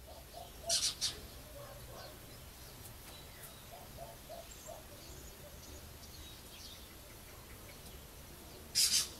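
Lesser kestrel calls: a quick run of three short, harsh calls about a second in and another near the end, with faint soft chirps between.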